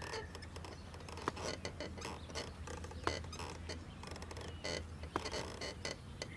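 Boots stepping up the rungs of an old metal stepladder, with a few short knocks and light creaks, about one step every two seconds, over a steady low hum.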